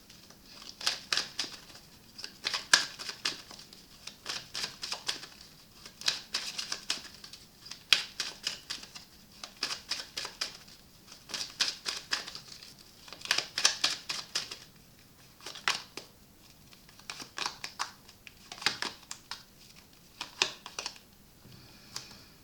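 Tarot cards being handled and shuffled: bursts of quick, light clicks and snaps, coming every second or so with short pauses between.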